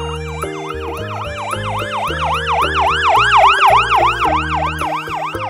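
Ambulance siren in a fast yelp: the pitch sweeps up and down about four times a second, steady and loud throughout, over background music.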